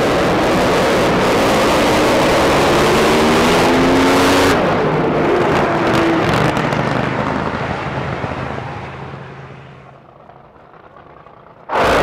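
Two 8,000-horsepower drag boats launch with a sudden, very loud engine blast and run flat out for about four seconds. Their engine note then drops in pitch as they go by and fades away. Just before the end another drag boat launches with the same sudden blast.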